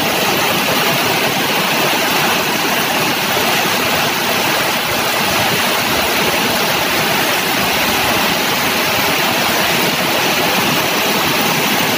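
Very heavy rain pouring down in a steady, loud hiss, with vehicles driving through floodwater on the road and throwing up spray.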